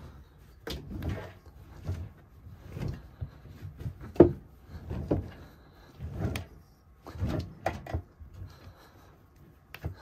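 Washing machine being loaded and handled: irregular rustles and knocks, the sharpest about four seconds in.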